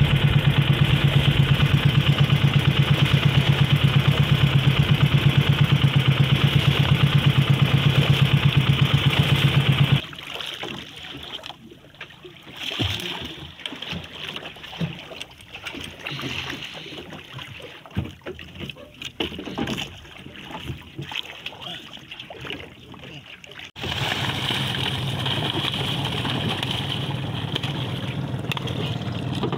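Small outrigger boat's engine running loudly with a steady pulsing beat, giving way suddenly about ten seconds in to quieter water sloshing and splashing with a few knocks against the hull while a big fish is brought aboard, then the engine running steadily again, less loud, near the end.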